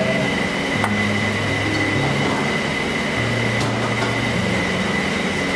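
Steady loud rumble and hiss of a steam-heated kitchen kettle and the kitchen machinery around it, with a constant high whine and a low hum. Two faint clicks come as a ladle skims the stock.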